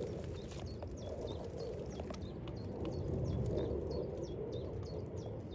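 Footsteps brushing through grass and vegetation, with a small bird calling in short, high chirps that drop in pitch, repeated a few times a second.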